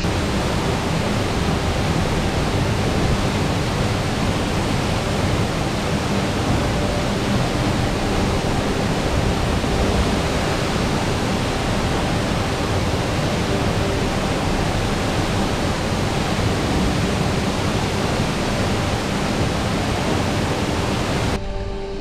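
Waterfall pouring heavily into a deep plunge pool: a steady, unbroken rush of falling water that cuts off suddenly near the end.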